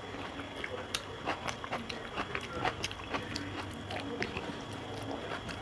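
Close-up eating sounds: fingers mixing rice with mashed roasted eggplant on a metal plate, with chewing, making many small irregular clicks and squelches over a steady low hum.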